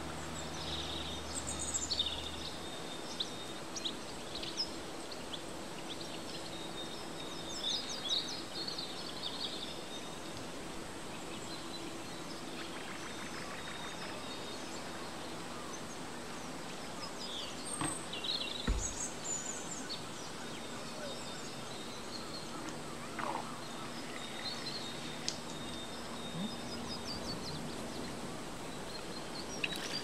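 Outdoor ambience: a steady background hiss with scattered bird chirps, and one dull thump about two-thirds of the way through.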